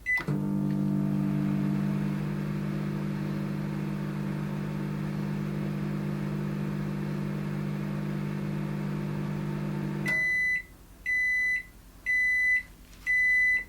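Microwave oven: a single keypad beep, then its steady hum running for about ten seconds with no arcing or crackle from the aluminium foil cast in resin inside. The hum then cuts off and four end-of-cycle beeps follow, about one a second.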